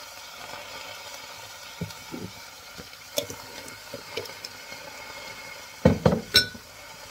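Steady hiss from a pot on a lit gas burner, with scattered light knocks and clinks of seasoning containers and utensils being handled, and a louder clatter about six seconds in.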